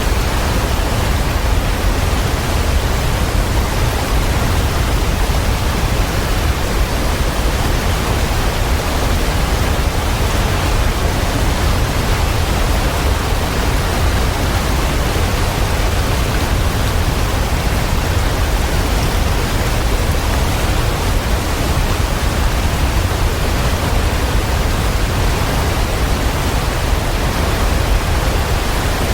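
Waterfall: a steady, unbroken rush of falling water with a deep low rumble.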